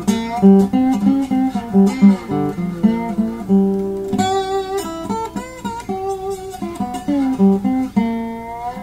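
Acoustic guitar played slide-style in standard tuning, a blues passage in the key of G: picked notes, some of them gliding up or down in pitch under the slide.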